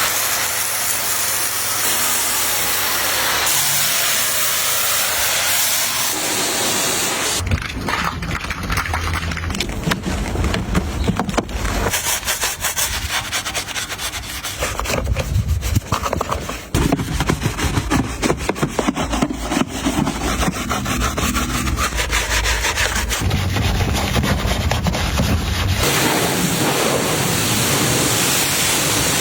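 Steady hissing spray for about seven seconds, then a long run of fast rubbing and scrubbing strokes, then the hissing spray returns near the end.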